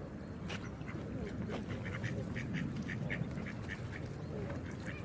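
Geese calling, a quick run of short calls at about four a second in the middle, over the steady sound of running water.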